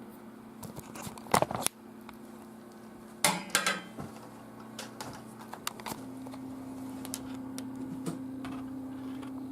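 Sharp plastic clicks and clatter from handling a mechanical keyboard and mouse, in two loud clusters about a second in and about three seconds in, with fainter scattered clicks after. A steady low hum comes in about six seconds in.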